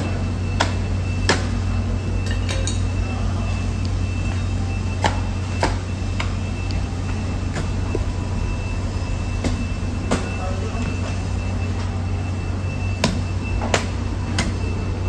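A heavy curved blade chopping into a large bluefin tuna, with sharp strikes in pairs about two-thirds of a second apart and a few seconds between pairs. A steady low hum of machinery runs underneath.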